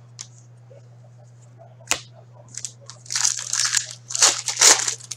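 Foil wrapper of a hockey card pack being torn open and crinkled by hand. A single sharp click comes about two seconds in, then a couple of seconds of crackly rustling and tearing.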